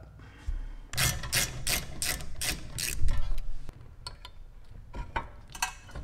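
Hand ratchet clicking in quick strokes, about three a second for some two seconds, followed by a few scattered metal clicks.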